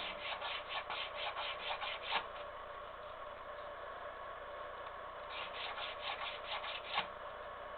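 A small knife scraping along a strip of cane (Arundo donax) in quick, even strokes, about five a second, thinning the blade for a double reed. There are two runs of strokes, the first stopping a little over two seconds in and the second starting after a pause of about three seconds.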